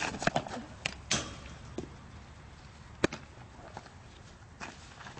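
Softball pitching practice: scuffing steps on a dirt infield and short sharp pops of the ball landing in a leather glove, the loudest a single crisp smack about three seconds in.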